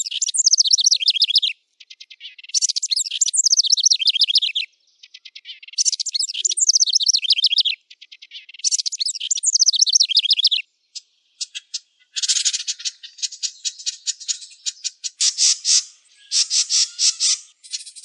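Wren singing: four bouts of about two seconds each of rapid, high, tumbling trills with short pauses between them, then, in the second half, a run of quick rattling chatter.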